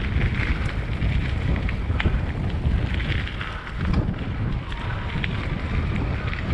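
Wind buffeting the microphone in a continuous low rumble, with faint scattered ticks.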